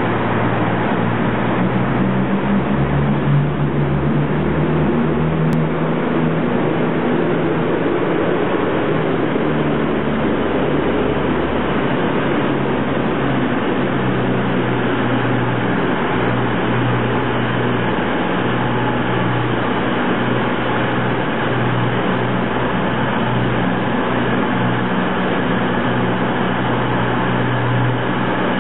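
CrossCountry Voyager diesel multiple unit arriving slowly along the platform, its underfloor diesel engines running with a steady low drone.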